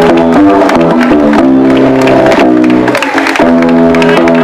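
Loud music played over loudspeakers, with steady chord changes and a beat, and some hand clapping mixed in.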